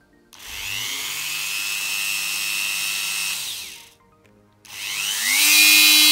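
BDcaT 6032 180 W mini drill (rotary tool) driving a flexible shaft extension, switched on twice. The first time it spins up to a steady whine for about three seconds and winds down. Then it spins up again at a higher speed, louder, and starts winding down near the end.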